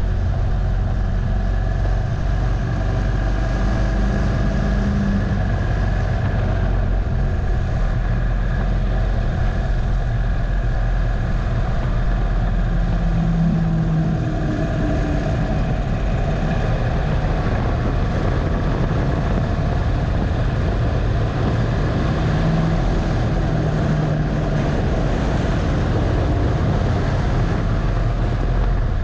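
2015 Harley-Davidson Dyna Low Rider's air-cooled Twin Cam 103 V-twin running under way, its note rising and falling as the throttle opens and closes, with steady wind rush over the handlebar-mounted camera.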